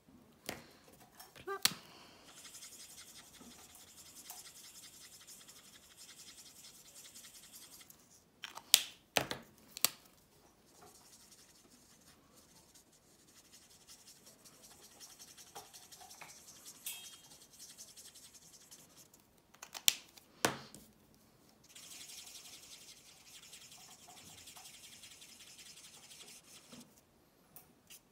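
Stampin' Blends alcohol marker tips scratching across cardstock in long colouring stretches, with a few sharp clicks as the markers are uncapped, capped and set down.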